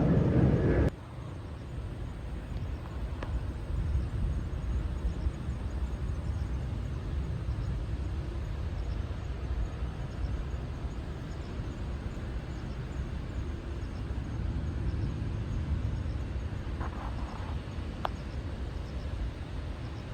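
Loud jet airliner noise that cuts off abruptly about a second in. It gives way to a steady, wavering low outdoor rumble with a few faint clicks.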